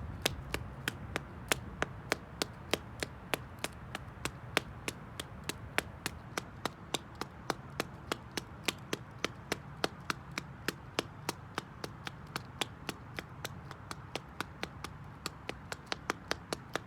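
The toes of black slingback shoes tapping on concrete in a quick, steady run of sharp taps, about three to four a second.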